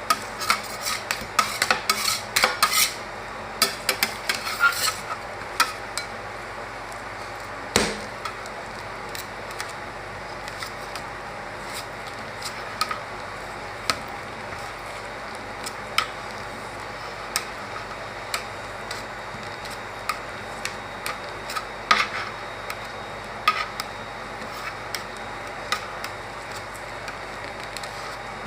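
Metal spatulas striking and scraping on the frozen steel plate of an ice cream roll machine: rapid chopping knocks for the first six seconds or so, then occasional single taps and scrapes.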